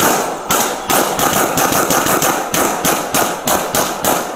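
Police handguns firing a rapid, continuous string of shots, about three to four a second, recorded close to the shooter's own pistol on a body-worn camera.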